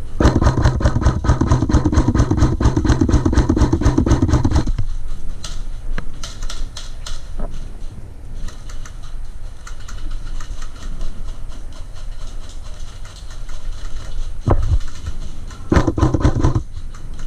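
Airsoft gun firing rapid full-auto bursts: one long burst over the first few seconds and another near the end.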